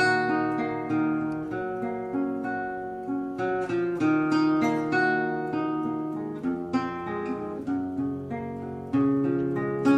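Background music on acoustic guitar: picked and strummed chords, each note ringing and fading, with no singing.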